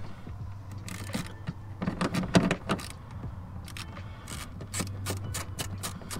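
A 10mm socket turning a tail-light retaining nut: irregular metallic clicks and rattles, in clusters about one and two seconds in and again near the end, over a steady low hum.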